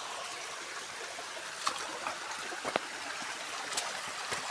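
A stream flowing and trickling steadily, with a few short, sharper sounds over it.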